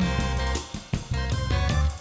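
Background music with a steady beat: bass and drums, with a plucked guitar-like instrument.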